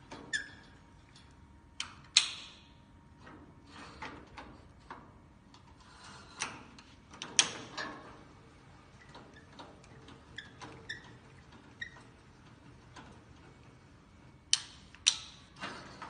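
Hand crank of a manual three-crank hospital bed being turned, raising the back and knee sections: light, irregular clicking from the crank and lift mechanism, with a few louder sharp metal clacks, the loudest about two seconds in and two close together near the end.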